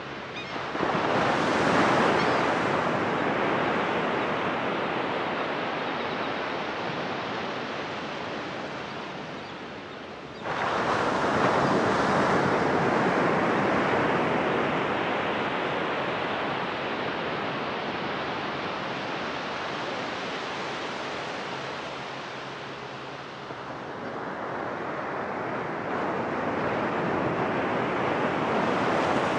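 Ocean surf breaking and washing up a sandy beach: a wave crashes about a second in and another suddenly about ten seconds in, each fading slowly into the wash, with a third swelling in near the end.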